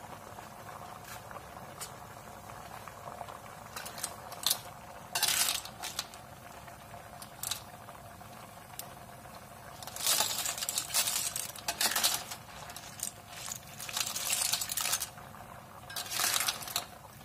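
Boiled clam shells clattering and clinking against one another and against the metal wok as they are stirred with a spatula, in several bursts of sharp clicks, busiest about ten seconds in and again near the end.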